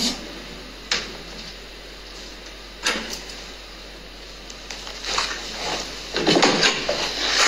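Handling sounds on a work table: two short sharp taps, about a second and three seconds in, then a couple of seconds of rustling and knocking as the recording phone is picked up and moved.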